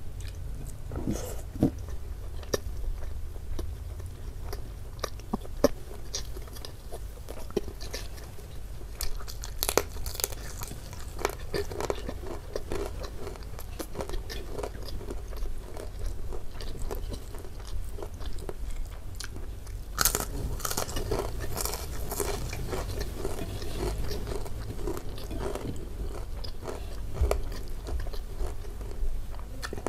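Close-miked chewing of a mouthful of beef rendang and rice, with many short smacking clicks of the mouth; the smacking is busiest about ten seconds in and again around twenty seconds.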